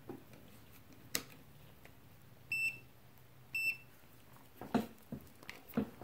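Two short, high electronic beeps about a second apart, with a few faint clicks and taps around them.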